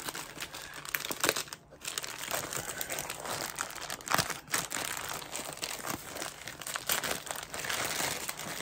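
Plastic wrapping crinkling and rustling in irregular crackles as a package is handled and unwrapped.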